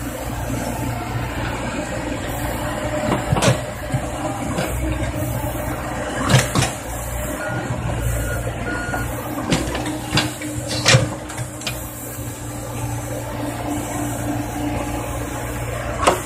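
Komatsu PC70 hydraulic excavator's diesel engine running steadily as the machine digs, a low drone, with a handful of sharp knocks from the bucket and boom working the soil.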